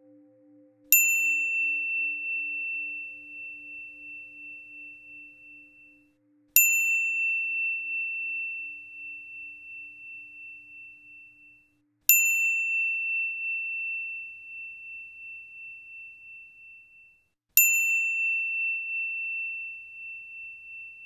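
A high-pitched chime struck four times, about five and a half seconds apart. Each strike rings one clear tone that fades slowly over several seconds.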